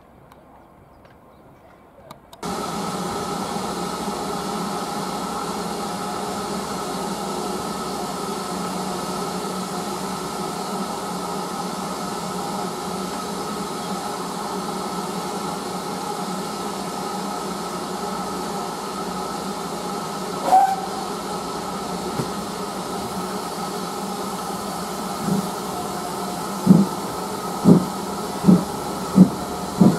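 Steam locomotive standing with a steady hiss of steam, starting suddenly a couple of seconds in. A short whistle sounds about two-thirds of the way through, then near the end come the first exhaust beats as the engine starts the train, getting quicker and quicker.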